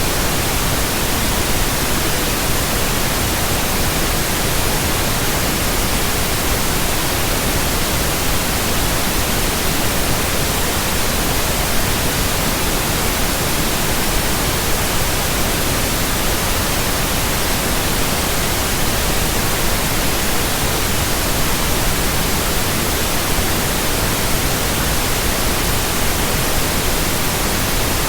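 Generated pink noise: a steady, unchanging hiss across the whole range of pitch.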